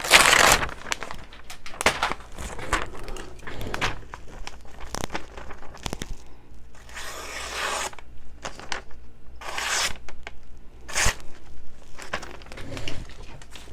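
Folding-knife blade slicing through glossy magazine paper: several separate slicing swishes with the paper rustling between them, the longest about seven seconds in, and a sharp tap about eleven seconds in.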